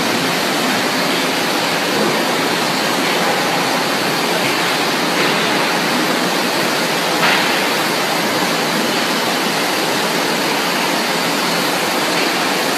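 Breathing (platen) veneer dryer at work: a steady, loud rushing hiss as steam vents from its heated plates, with a slight knock about seven seconds in.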